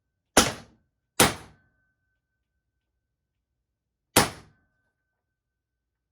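FN303 compressed-air less-lethal launcher firing three sharp shots of 10-gram rounds: two in quick succession, then a third about three seconds later.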